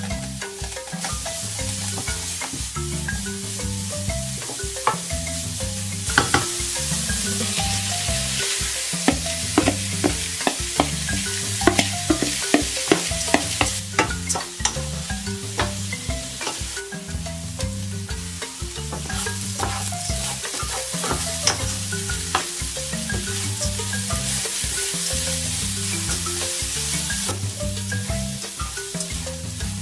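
Grated carrot and rice frying in oil in a nonstick pan, sizzling steadily while a wooden spoon stirs, with many light knocks and scrapes of the spoon against the pan.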